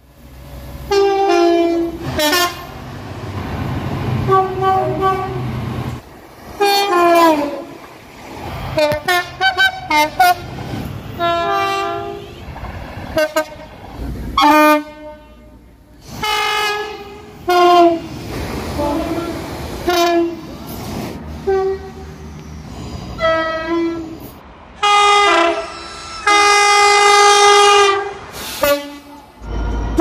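Horns of several British trains sounding one after another: short blasts that step between two or more pitches, repeated many times, with the rumble of passing trains beneath. Near the end comes one long held blast.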